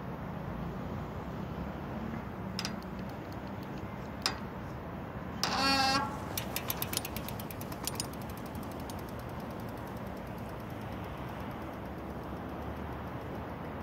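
Steady hum of distant road traffic, with a short car horn toot about five and a half seconds in, followed by a run of quick clicks.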